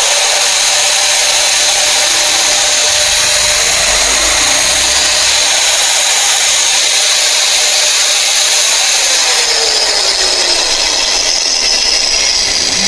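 Dongcheng 801 angle grinder's brushed motor running steadily at full speed with no disc fitted, a constant high whine over motor noise, dipping slightly in pitch about nine to ten seconds in. It runs without cutting out on freshly replaced carbon brushes, the worn brushes having made it stop while running.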